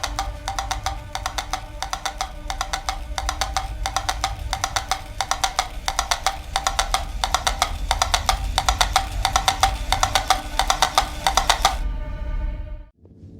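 A mechanical toy drum beating a fast, even rhythm of light taps, which stops abruptly near the end.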